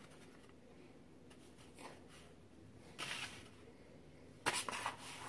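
Hands crumbling and scraping kinetic sand in a tray: faint rustling, with two short scraping rustles, one about three seconds in and a louder one near the end.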